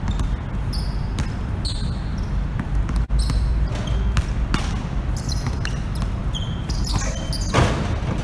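A basketball bouncing on an outdoor court during a game, irregular thuds from dribbles and passes, with a few short high squeaks over a steady low rumble.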